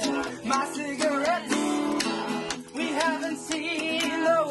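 Acoustic guitar strummed with voices singing along.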